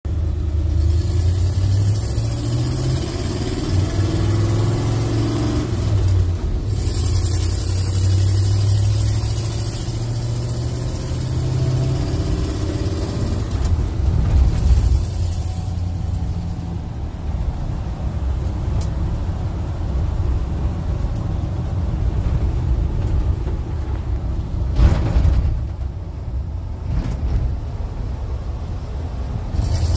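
Engine of a 1978 Dodge W150 pickup running, heard from inside the cab, its revs rising and easing a few times in the first twelve seconds. A brief knock sounds about 25 seconds in.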